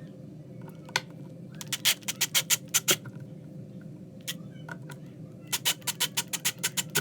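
Two runs of sharp, quick clicks, about seven a second, from a tool driving the screws that hold a cabinet door handle, tightening them against added lock washers. A steady low hum runs underneath.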